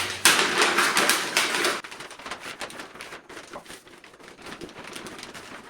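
Paper crinkling and rustling as it is folded over the corner of a cardboard box, loudest for the first two seconds, then softer rustles and light ticks.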